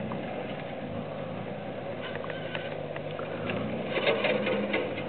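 Jeep Wrangler JK engine running at low revs as it crawls through a steep, rutted gully. The revs swell a little about three and a half seconds in, with scattered sharp clicks and knocks.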